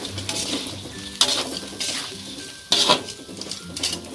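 Perforated metal spatula scraping and knocking against a wok while stir-frying in sauce, with a light sizzle underneath. It is a series of strokes, the two loudest about a second in and just under three seconds in.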